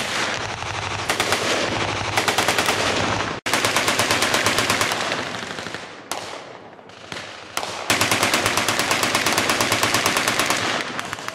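Full-automatic machine-gun fire: several long, rapid bursts separated by short pauses, with a sharp break about a third of the way in.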